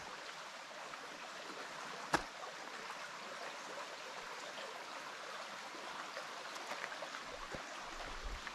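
A small forest brook flowing, a steady gentle rush of water. There is one sharp click about two seconds in.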